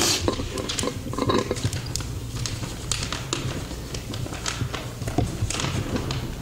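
Sheets of paper being handled and turned close to a microphone: rustling with scattered short crinkles and clicks.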